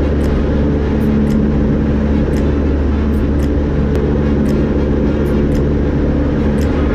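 Cessna 172's piston engine and propeller running at a steady cruise setting, heard from inside the cabin as a constant, even drone.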